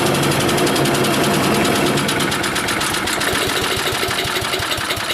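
Troy-Bilt wood chipper's Briggs & Stratton 250cc single-cylinder engine running just after a cold start on carburetor cleaner sprayed into the cylinder. After a few seconds its firing slows into separate, uneven beats as it starts to falter. The owner takes this as a sign that the carburetor needs cleaning.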